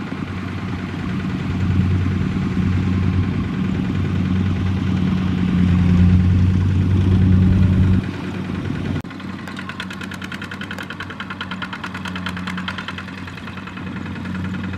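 Single-cylinder diesel engine of a two-wheel walking tractor running steadily under load as it pulls a loaded trailer through sticky mud. About eight seconds in it drops in level, and after that it runs quieter with a fast, even clatter.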